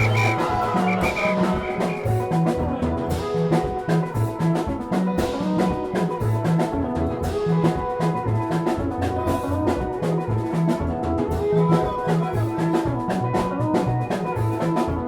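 Dance music with a steady drum beat, a bassline and melodic instruments, played loud over a sound system.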